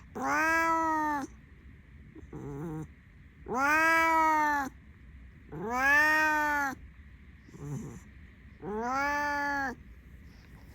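Domestic cat meowing loudly and repeatedly: four long drawn-out meows of about a second each, rising then falling in pitch, with short quieter chirping calls between them.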